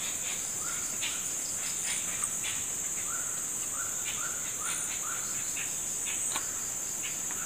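Insects buzzing in a steady, high-pitched drone, with short chirps repeating irregularly over it.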